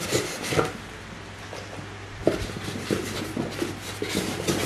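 Hands working polystyrene foam packing and a cardboard box open to get a new three-jaw lathe chuck out: scattered short scrapes, rubs and knocks of foam and cardboard, over a steady low hum.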